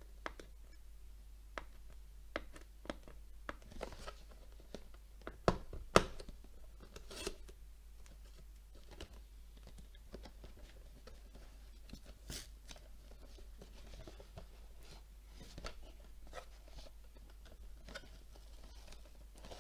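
A LEGO set's cardboard box being opened by hand, without a knife: scattered clicks and snaps of cardboard with a few short tearing sounds, the two loudest snaps coming about five and a half and six seconds in.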